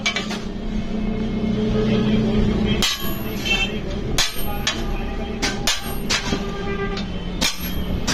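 A small hand hammer strikes a thin steel kassi (spade) blade lying on an anvil. About six sharp, ringing blows come at irregular intervals, starting about three seconds in.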